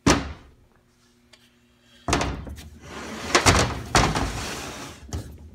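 Metal tools and transmission parts being handled: a single sharp clunk, then about three seconds of clanking and scraping with a few heavy knocks.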